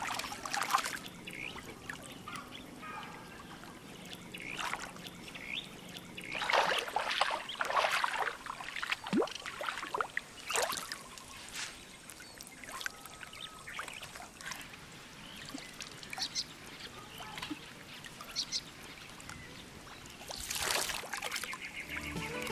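Shallow river water splashing and sloshing as a person sits, rolls and stands up in it, in irregular bursts with quieter trickling between them. The louder splashes come about a third of the way in, at about the middle, and again near the end.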